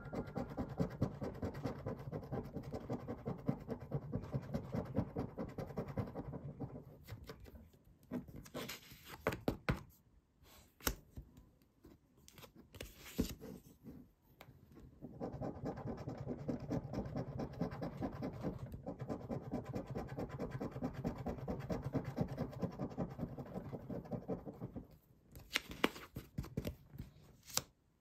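A coin scraping the scratch-off coating from an FDJ Banco paper lottery card in fast strokes. The scraping comes in two long spells, with a gap of a few sharp clicks and taps between them and more taps near the end.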